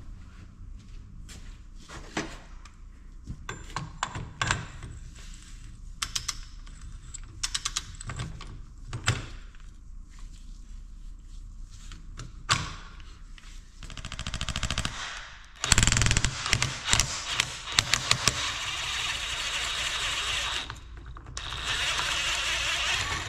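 Scattered metal knocks and clicks from work on a seized Detroit diesel governor housing, then a loud shop tool running with a rapid rattle for about five seconds, and again in a shorter steady burst near the end.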